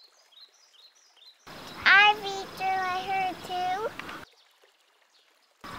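A high-pitched voice speaking in long, drawn-out, sing-song notes for about three seconds, after a few faint bird chirps; near silence before and after it.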